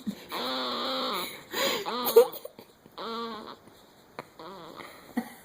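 A baby making a strange noise that sounds like a duck call, or like a motorcycle or weed whacker being started: one steady-pitched stretch of about a second, then shorter bursts, fading toward the end. Whether it comes from her nose, mouth or chest is unclear.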